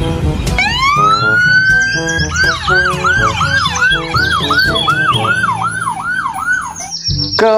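Ambulance siren: a rising wail that winds up over the first two seconds, then switches to a fast yelp of about three sweeps a second.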